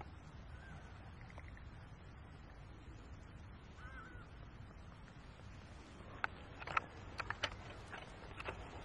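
A low steady rumble with a couple of faint short bird chirps, then a quick run of sharp clicks and snaps about six seconds in, lasting a couple of seconds.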